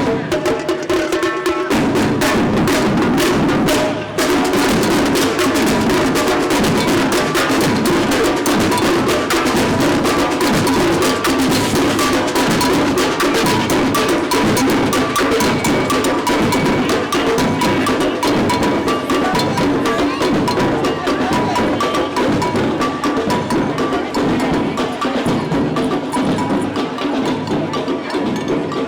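A percussion band drumming, with many drums beating together in a dense, continuous rhythm.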